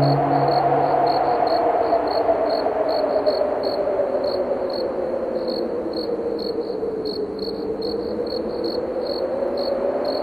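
Crickets chirping at about three slightly uneven chirps a second over blowing wind that slowly falls and rises in pitch. The last ring of a church bell fades out in the first second or so.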